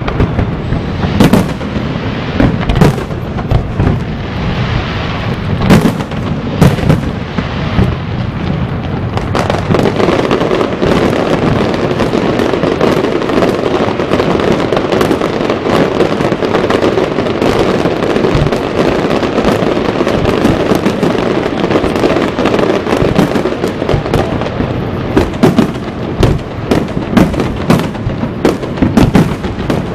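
Fireworks display going off: a few sharp bangs at first, then a long dense, continuous stretch of crackling and rumbling, and rapid bangs in quick succession again near the end.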